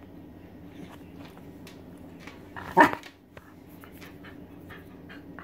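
Welsh Terrier giving one sharp bark nearly three seconds in, a begging bark for her owner's dinner.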